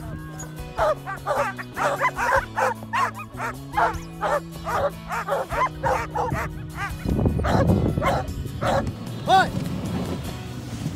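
A team of harnessed sled dogs barking and yipping in quick succession. Background music with a slow, stepping bass line runs underneath, and a rushing noise comes in about seven seconds in.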